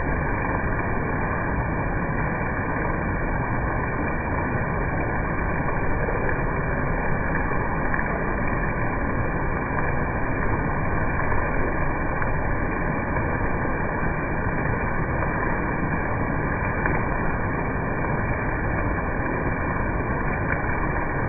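A steady, even rushing noise with no distinct events, dull and muffled, lacking any high end.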